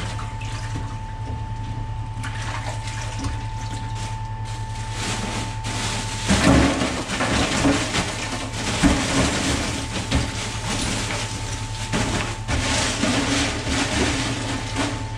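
Salted water swished by hand in a stainless-steel kitchen sink. From about six seconds in, ice cubes are tipped from a plastic bag into the water, clattering and splashing, with the bag rustling, over a steady low hum.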